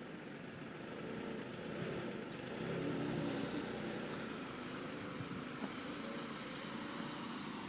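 Vehicle engines running and revving under load while a car stuck in mud is pulled free with a tow, the engine sound wavering in pitch and growing louder about two to three seconds in.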